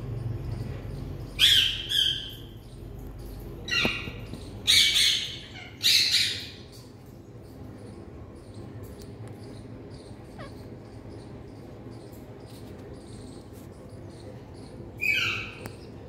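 Indian ringneck parakeets giving harsh squawks: a quick cluster of about five in the first seven seconds, then one more near the end.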